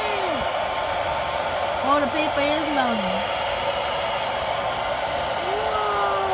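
Handheld hair dryer blowing steadily, melting a row of crayons. A faint sliding pitched sound comes in a couple of seconds in and again near the end.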